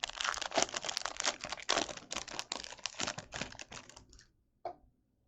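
Plastic wallpack wrapper of a Topps baseball card pack crinkling and crackling in the hands as it is torn open, a rapid run of small crackles that stops about four seconds in, followed by a single faint tick.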